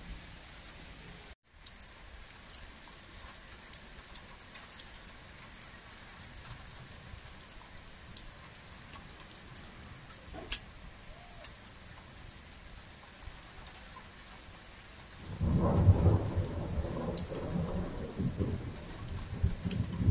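Steady rain falling, with scattered drops ticking on a nearby surface. About fifteen seconds in, a loud rumble of thunder starts and rolls on to the end.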